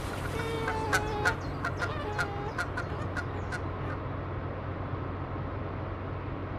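Geese honking, a quick run of calls that thins out and stops about three and a half seconds in, over the steady low hum of a car on the move.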